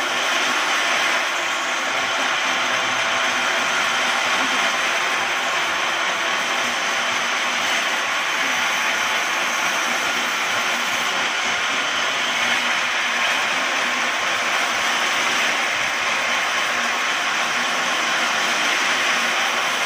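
Electric-motor-driven horizontal band sawmill sawing lengthwise through a log, the band blade cutting the wood with a steady, unbroken noise.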